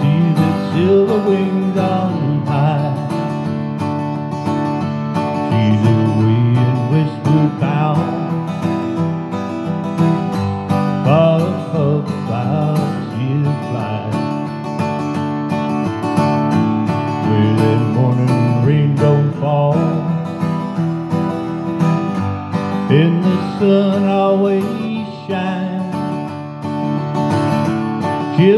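Strummed Orangewood Echo acoustic guitar accompanying a man singing a country-folk song, with sung phrases coming and going over the steady strumming.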